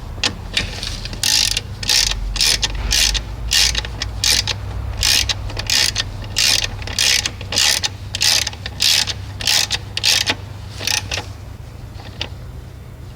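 Hand ratchet wrench clicking in short rasping runs, about two a second, as it drives in the screw that holds the air intake; the clicking stops near the end once the screw is snug.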